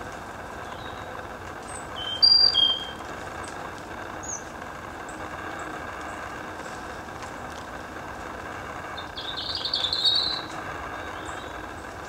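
Small birds calling at a woodland feeder: scattered thin high chips, two loud clear whistled notes about two seconds in, and a louder burst of rapid notes around ten seconds in. A steady low background rush runs underneath.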